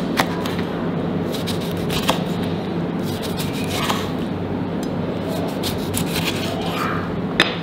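Chef's knife slicing a lemon into rounds on a wooden cutting board, the blade knocking sharply on the board a few times, over a steady low hum.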